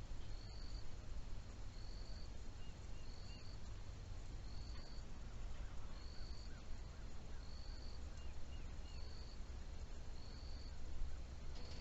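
Outdoor nature ambience: a short, high peep repeating regularly about once a second, twice joined by a quick group of three lower chirps, over a steady low rumble.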